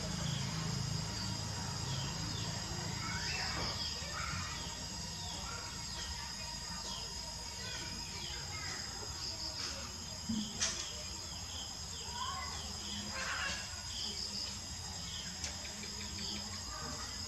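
Insects trilling steadily, with short high chirps repeating throughout and a low hum underneath.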